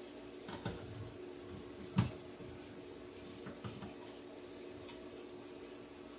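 Screwdriver backing out the cover screws of a metal electrical subpanel: a few small metallic clicks and scrapes, with one sharper click about two seconds in, over a steady low hum.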